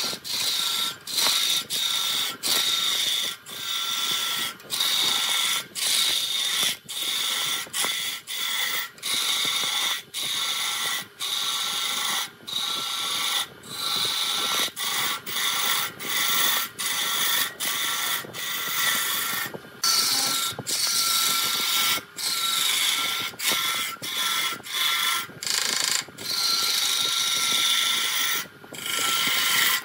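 Woodturning tool cutting wood on a spinning lathe in many short passes, each under a second to about a second long with brief breaks between. A steady high whine runs underneath.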